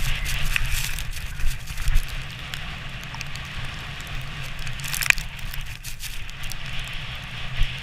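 Sledge runners hissing and crackling over snow on a downhill run, with scattered sharp clicks and a steady low rumble underneath; one sharper click about five seconds in.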